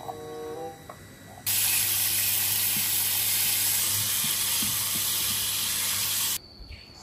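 Water running from a tap into a sink, turned on about a second and a half in and shut off near the end: a loud, even hiss over a steady low hum.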